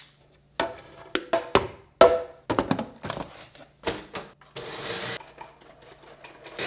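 Kitchen handling clatter: a plastic personal-blender cup and lid twisted apart and knocked about, a string of short knocks and clicks with a brief hiss-like burst about two-thirds of the way through, over background music.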